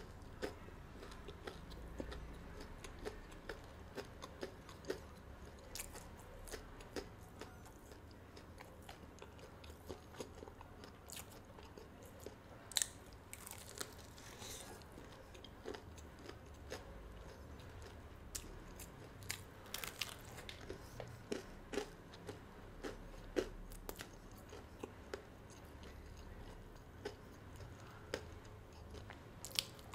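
Close-miked person biting and chewing boneless breaded fried chicken: faint, irregular crunches and mouth clicks.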